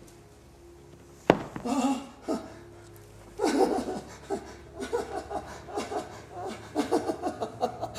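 A single sharp knock, then a man's wordless vocal sounds: a short exclamation, then from about three seconds in quick breathy gasps, pants and little yelps.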